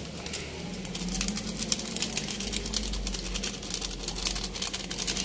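A pot of pork broth at a rolling boil, bubbling and crackling densely, the crackle thickening about a second in as seasoning granules are poured in. A low steady hum runs underneath.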